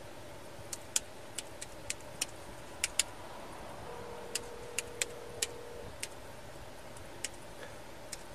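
About fifteen sharp, irregularly spaced clicks of keys being pressed on a patrol car's laptop keyboard, over the steady hum of the idling car inside the cabin. A faint steady tone sounds for about two seconds in the middle.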